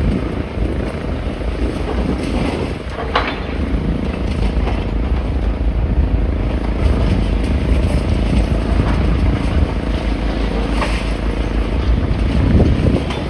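Wind buffeting the microphone, a heavy low rumble over the steady noise of town-centre road traffic, with a couple of brief sharper sounds, one about three seconds in and one near eleven seconds.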